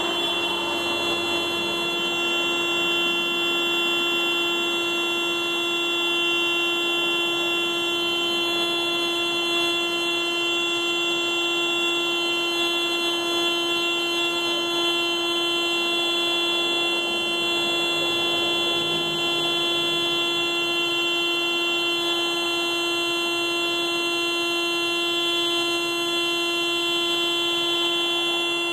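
Car alarm sounding as one loud, steady, unbroken horn-like tone that does not pause or change pitch: an alarm stuck going off without stopping.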